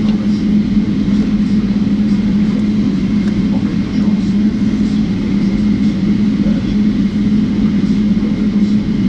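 Steady cabin hum inside a Boeing 777-300ER standing on the ground, a continuous low drone with a faint high tone above it and no change in level.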